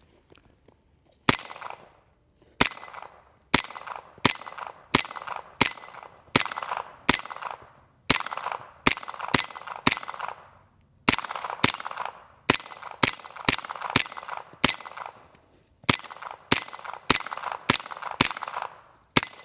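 Suppressed Sig Sauer MPX-K 9mm fired semi-automatically in rapid fire: about 27 shots at roughly two a second, in strings with a couple of brief pauses, each shot followed by a short ringing tail.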